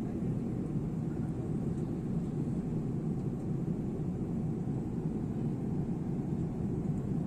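Steady low rumble of an airliner cabin in cruise flight, the constant drone of engines and airflow with no changes.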